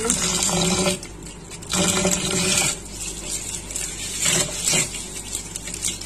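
Water sloshing and splashing as rice is washed by hand in a bowl of water, in three bursts of a second or so.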